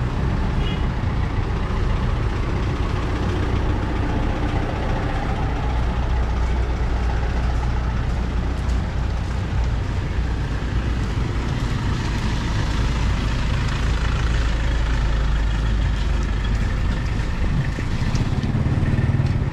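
Street traffic noise dominated by a motor vehicle's engine running close by, a steady low rumble.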